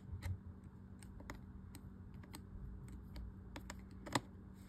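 Scattered small clicks and taps of a flat-blade screwdriver working at the handle-retaining screw in the plastic body of a Zebco 33 spincast reel, with one louder click about four seconds in.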